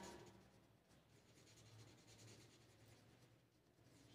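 Faint scratching of a crayon colouring in on paper.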